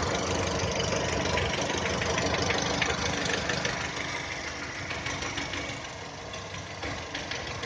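VW Touran's 1.6 BSE eight-valve petrol engine idling with a rapid, steady knocking. This is a cold-engine knock that appears at idle below 1000 rpm and gets quieter as the engine warms up.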